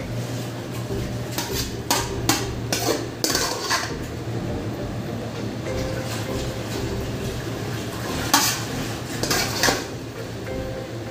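Metal spoon clinking and scraping against a ceramic bowl of stewed papaya and beef: a run of sharp clinks from about one to three and a half seconds in, then a few more near the end, the loudest about eight seconds in. A steady low hum runs underneath.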